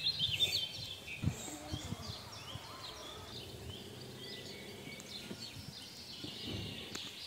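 Small birds chirping over and over in short calls, with a few faint snaps and crackles from a freshly lit kindling fire of bark and sticks.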